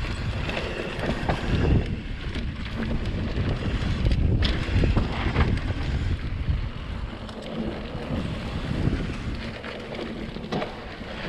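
Wind buffeting the microphone while an electric mountain bike rides along a dirt trail, with tyre noise and scattered knocks and rattles from the bike over rough ground.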